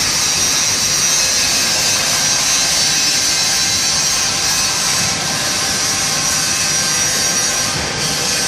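Steady, loud machinery noise with a strong hiss, unbroken throughout.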